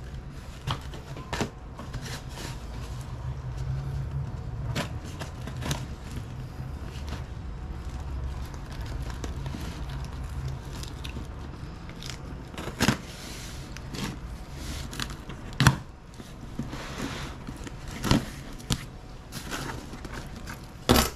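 Cardboard box being cut open with a box cutter and its flaps handled: scraping and crackling of tape and cardboard, broken by sharp knocks and taps, a few of them loud. A low hum sits under the first half.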